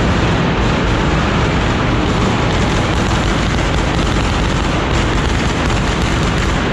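Fireworks on a ceremonial cart going off in a rapid, unbroken string of bangs and crackles, loud and steady throughout.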